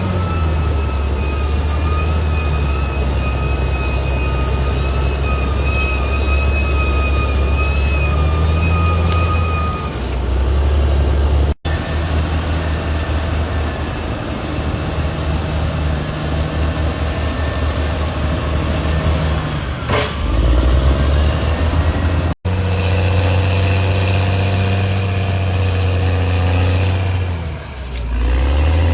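Crawler bulldozer's diesel engine running under load with a deep steady drone. In the first part a thin high whine runs over it. The sound breaks off abruptly twice, and there is a single sharp clank or squeal about two-thirds of the way through.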